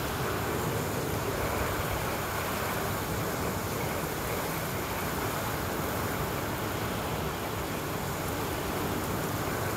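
Storm wind with heavy driving rain: a steady, dense rushing hiss, fierce as a high-pressure cleaner, with a low unsteady rumble beneath it.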